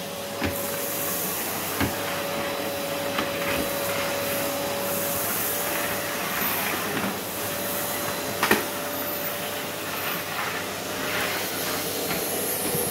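Workshop vacuum cleaner running steadily, sucking up dust and shavings from a wooden floor through a floor nozzle on a long hose, with a steady whine over the rush of air. A few sharp knocks come through, the loudest about eight and a half seconds in.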